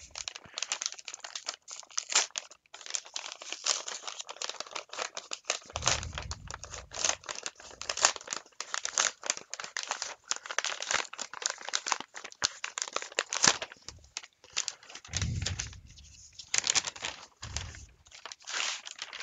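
Cardboard and paper mailer packaging of a vinyl LP being opened by hand: continuous irregular rustling, crinkling and tearing, with a few dull low bumps as the package is shifted about.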